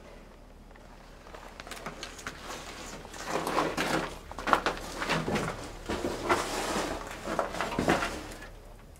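Irregular scuffing, rustling and knocking of handling and movement in a cramped metal interior, building up about a second and a half in and dying away near the end.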